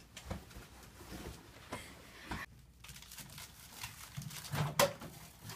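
Quiet scattered rustling and small knocks of people moving about and handling things, with a sharper click about five seconds in.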